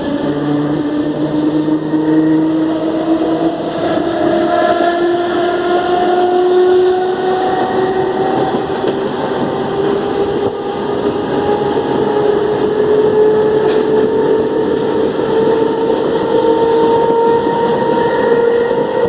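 CPTM series 4400 electric multiple unit pulling away, its traction motors running loud with a whine that rises steadily in pitch as the train gathers speed, over the rumble of the wheels on the track.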